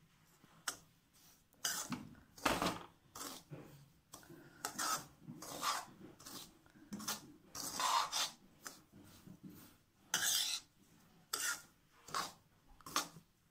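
Slotted metal spatula scraping and stirring semolina roasting in ghee in a kadai. The scraping strokes come irregularly, a little more than one a second.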